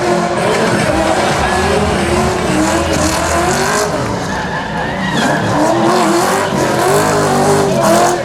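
Holden Commodore's LS2 V8 on hard throttle through a drift, the revs rising and falling again and again, with tyres squealing and screeching throughout.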